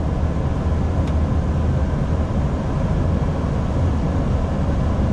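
Steady flight-deck noise of an Airbus A320 on final approach: a constant low drone with an even rush of air over it.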